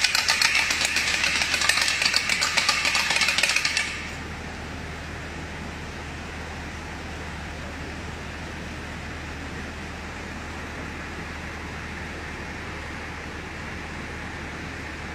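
A wooden Good Friday rattle, sounded in place of bells, clattering rapidly and stopping abruptly about four seconds in. After it only a steady low hum and room noise remain.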